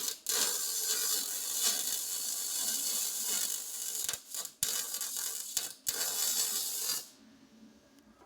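MIG welder arc crackling steadily as a weld is run, broken by a few short gaps, then stopping abruptly about seven seconds in.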